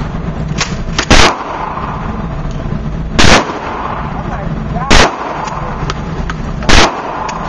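Four gunshots at an even pace, about two seconds apart, each a sharp crack with a short ringing tail.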